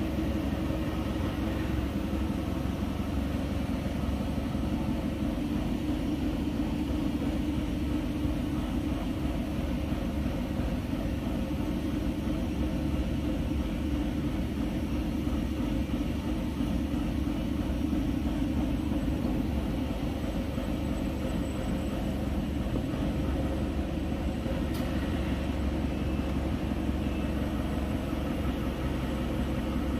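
Single jersey jacquard circular knitting machine running at a steady speed: a continuous low mechanical rumble with an even clatter that does not change pace.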